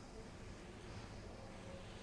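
Quiet room tone: a faint steady hiss and low hum, with no distinct sound.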